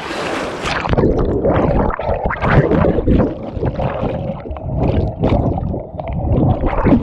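Rushing water and a splash, then muffled bubbling and gurgling from the action camera plunged underwater in the pool.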